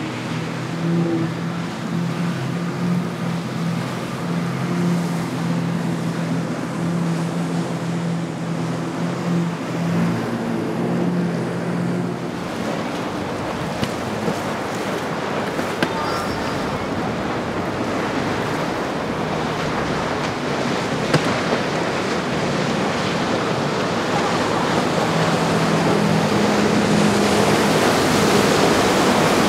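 Boat engines running low and steady over the rush of surf and wind at a rough inlet. The engine note fades after about twelve seconds, leaving the water and wind noise, which grows louder. The engine note comes back near the end.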